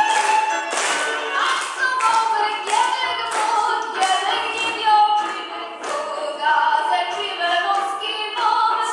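Górale-style Polish highlander folk song sung by a group of voices, with sharp claps on the beat about twice a second.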